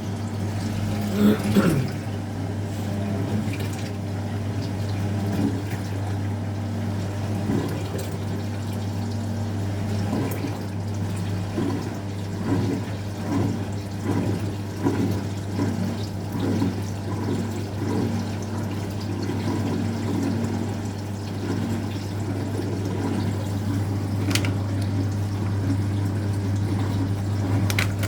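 Speed Queen top-loading washing machine at work: water sloshing and splashing in the tub over a steady low hum.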